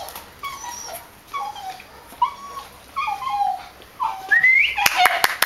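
Belgian Malinois puppy whining in a string of short, high, slightly falling whines, about two a second, with a longer rising whine about four seconds in. A few sharp clicks near the end.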